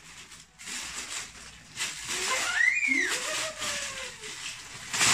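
Rustling and crinkling of packaging being handled, with a brief gliding tone that rises and then falls about two and a half seconds in.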